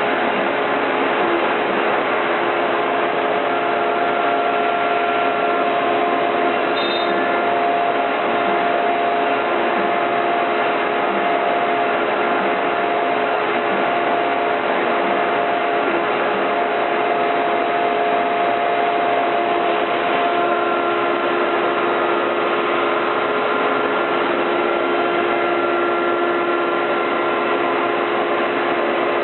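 CNC router spindle with a 1/4-inch bit cutting MDF: a steady whine of several held tones over even cutting noise, with no breaks.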